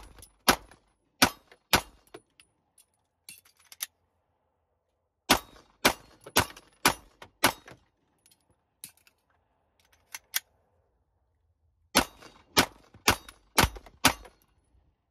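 Smith & Wesson M&P9 Metal 9mm pistol fired in three quick strings of shots, about two shots a second, with a pause of a few seconds between strings for a magazine reload. Faint clicks of the magazine change come in the pauses.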